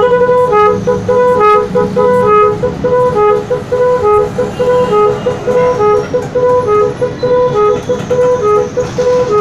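Electric snail horn played through a multi-tone horn tuner, sounding a fast tune of short, loud horn notes that step between a few pitches.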